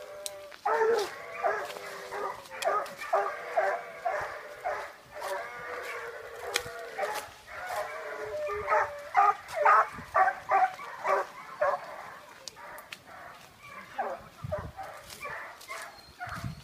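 Young dogs yipping and whining in quick, repeated short calls, one of them drawing out into a longer whine about a third of the way through.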